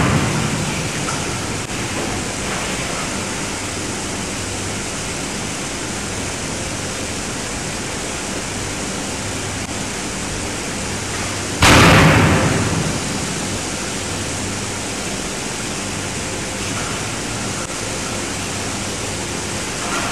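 An 18-ton closed-die hydraulic forging hammer strikes a hot workpiece once, about midway through: a single heavy blow with a tail that dies away over a second or so. A steady rushing noise from the forge shop runs underneath.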